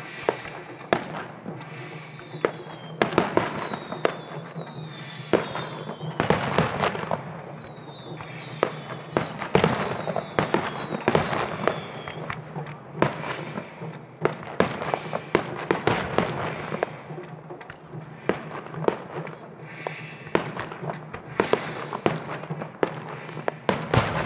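Aerial fireworks shells bursting in quick succession: many sharp bangs and crackles, with several whistles falling in pitch during the first half.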